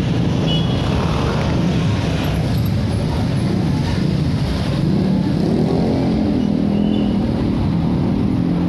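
Busy road traffic: many motorcycles and other motor vehicles running and pulling away, with one engine rising in pitch from about halfway through.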